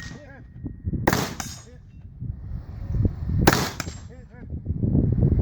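Two AR-15 rifle shots about two and a half seconds apart, with shuffling movement noise between them.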